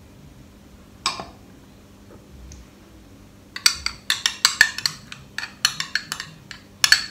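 A metal spoon clinking and scraping against a small glass bowl as thick mustard paste is spooned out. There is a single clink about a second in, then a run of quick taps and scrapes from about three and a half seconds in.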